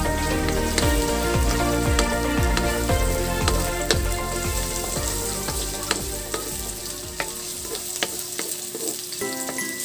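Sliced onions and aromatics sizzling in oil in a wok, stirred with a wooden spatula that scrapes and taps against the pan. The frying gets a little quieter after about six seconds.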